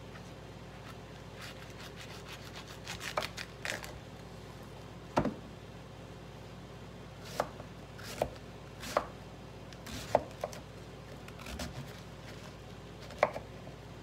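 A kitchen knife cutting a head of red cabbage on a wooden cutting board: irregular sharp knocks of the blade on the board, a small cluster about three seconds in, then single cuts roughly a second apart.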